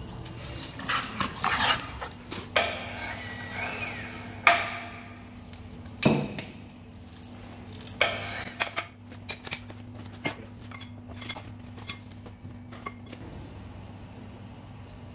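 Metal clanks and knocks as a heavy steel workpiece is handled against a lathe chuck with a lifting sling, over a steady low hum. The loudest knocks come in the first half, followed by lighter clicks.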